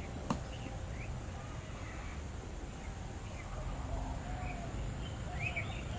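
Outdoor ambience of scattered faint bird chirps over a steady low rumble, with a single sharp click shortly after the start.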